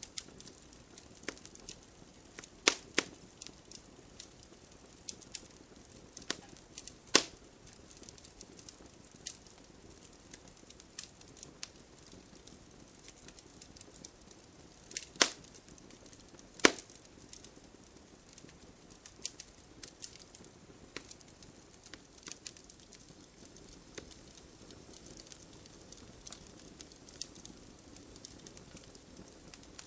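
Wood fire crackling, with irregular sharp pops and a few louder cracks, over a soft steady hiss of rain.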